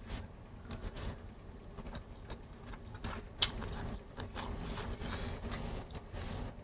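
Close-up mouth sounds of eating spaghetti: noodles slurped in, then chewing with irregular wet smacks and clicks, one sharp click a little over three seconds in.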